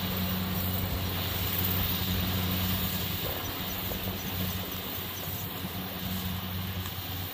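Kubota rice combine harvester running steadily while cutting and threshing rice, a steady low engine hum over a broad mechanical rush. It grows a little quieter as the machine moves away.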